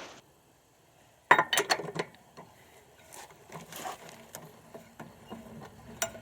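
Steel tire iron clanking onto a car's lug nut, followed by a quick run of metallic clicks and then scattered softer knocks and scrapes as the lug nuts are turned off by hand.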